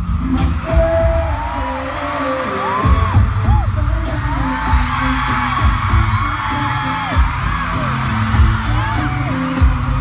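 Bass-heavy pop music over an arena sound system, its low beat growing stronger about three seconds in, with high screams and cheers from the fans over it.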